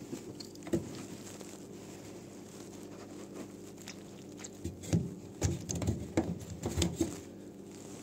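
Washing machine's plastic drain-pump filter being fitted back into its housing and screwed in: one knock about a second in, then a cluster of plastic knocks and scraping over a few seconds, over a steady low hum.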